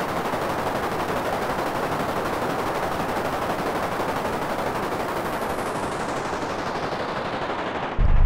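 Dense crackling noise texture from an experimental electronic music soundtrack, its high end gradually filtered away over the last few seconds. Near the end it cuts off abruptly and a loud low drone takes over.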